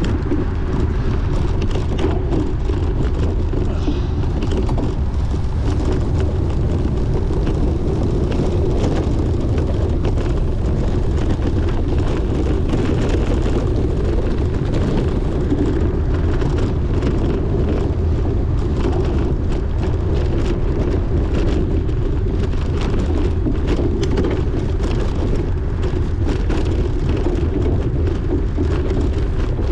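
Wind rushing over the microphone of a camera on a bicycle being raced hard, with the bike rattling and clicking over rough ground.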